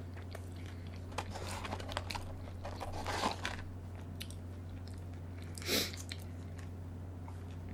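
Close-miked chewing of crunchy food: a run of crisp crunches and clicks in the first few seconds, then a short breathy burst near six seconds, over a steady low hum.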